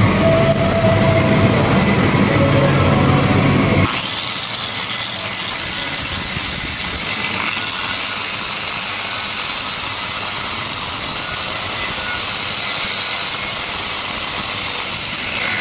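Angle grinder running steadily on a freshly welded 8010G pipe weld bead, a steady high whine over a hiss. It follows about four seconds of a low mechanical rumble that cuts off abruptly.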